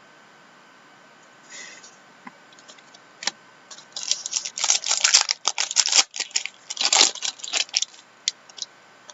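Trading cards and their wrapping being handled: a few scattered clicks, then a dense run of crinkling and clicking from about four to eight seconds in.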